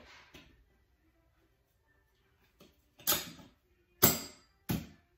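Metal frame pieces of a collapsible table stand knocking and scraping together as they are fitted: two faint clicks at the start, then three louder sudden metal noises in the last two seconds.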